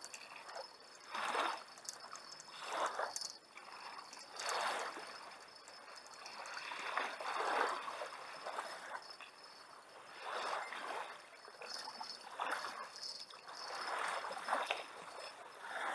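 Small waves lapping at the shoreline and against a beached kayak's hull, coming in irregular washes every second or two.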